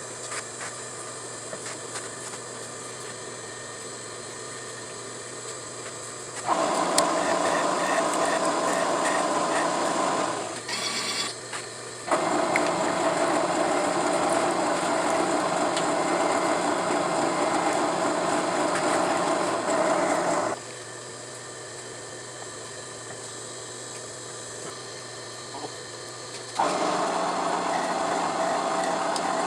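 Milling machine running, drilling holes in a round metal plate. It gets louder in three long stretches as the bit cuts into the metal, with quieter spindle running between.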